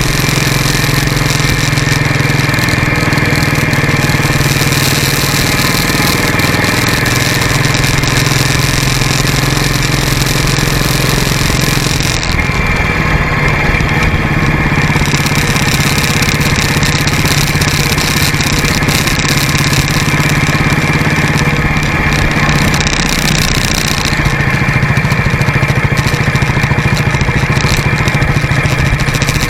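Motorcycle engine running steadily while riding, under a constant rush of wind and road noise.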